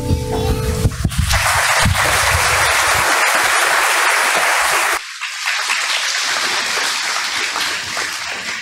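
The last held note of a children's choir song ends, then audience applause and clapping. The applause drops abruptly in loudness about five seconds in and tapers off near the end.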